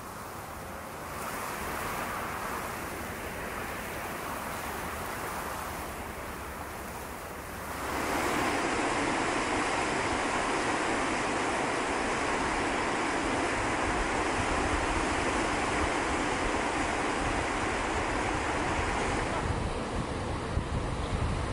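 Fast mountain river rushing over rapids, a steady noisy rush that grows much louder about eight seconds in, with some wind on the microphone.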